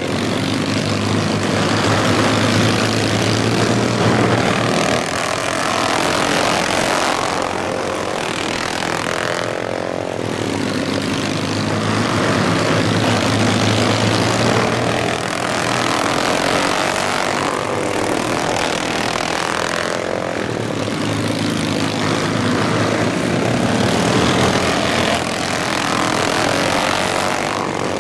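Several racing lawn mowers' small engines running hard together, the sound swelling and fading every few seconds as the mowers pass and work through the turns.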